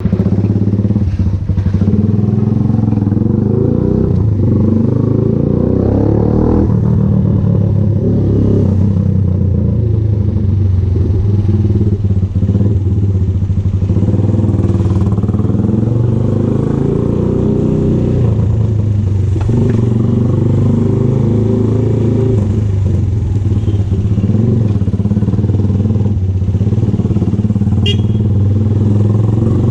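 VLR200 motorcycle engine with an aftermarket Devil exhaust can, running steadily while riding, its pitch shifting a little with small changes in throttle.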